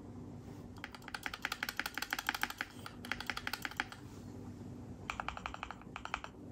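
Modded Keychron Q2 Pro mechanical keyboard being typed on, in two runs of rapid keystrokes with a pause of about a second between them. The keyboard has extra gasket foams and painter's tape added inside for a deeper sound with less metallic echo.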